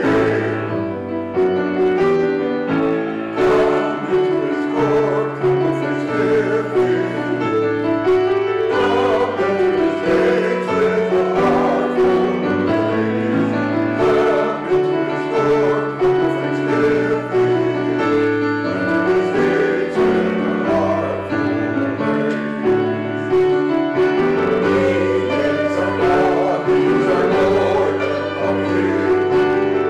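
A small mixed choir of men and women singing in long held notes, accompanied by a grand piano.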